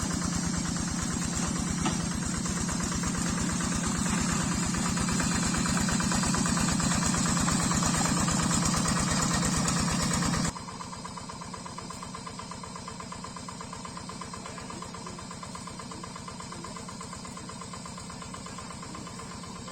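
Single-cylinder Yanmar diesel engine of a two-wheel hand tractor, running steadily with a fast, even firing beat. About halfway through it suddenly becomes quieter and duller, but keeps running.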